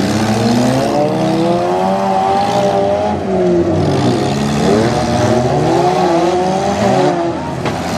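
Several four-cylinder demolition derby car engines revving, their pitch climbing, dropping and climbing again as the cars accelerate and reverse across the dirt, with a sharp knock near the end.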